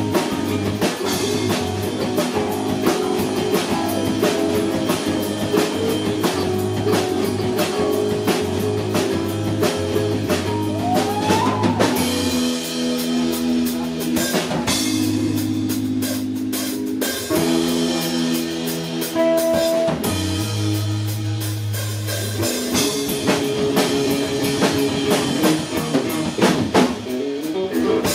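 Small rock band playing live: electric guitars with a doubleneck guitar, and a drum kit. The guitar part changes about twelve seconds in and again around twenty seconds.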